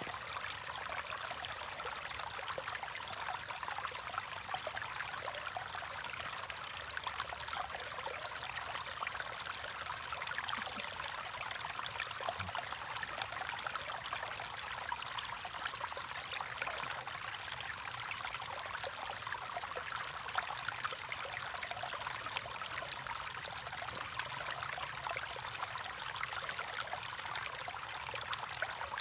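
Stream water running steadily, a constant trickling rush.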